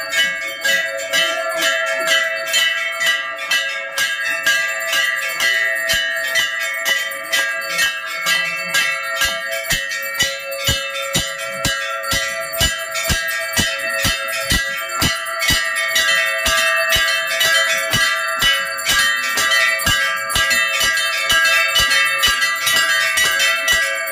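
Several large hanging metal temple bells rung by hand for aarti, struck over and over about two to three times a second so their ringing overlaps into one continuous clang.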